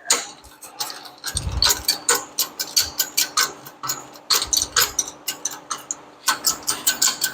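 Irregular metallic clicks and clinks of clutch parts and tools being handled while a Borg & Beck clutch is assembled, with a couple of low thumps.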